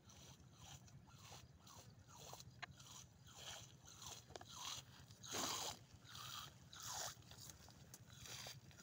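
Faint rustling, crunching footsteps of rubber boots through young corn and grass, about two steps a second, the loudest just past the middle.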